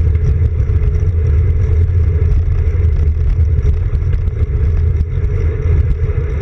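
Steady, loud low rumble of wind and road vibration on a road bike's handlebar-mounted camera while riding along an asphalt path.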